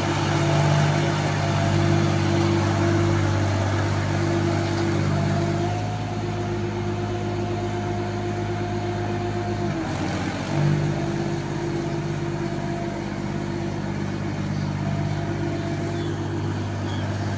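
Massey Ferguson 254 DI tractor's diesel engine running steadily under load as it pulls a disc implement on cage wheels through a flooded paddy. About ten seconds in the engine note briefly dips, then recovers.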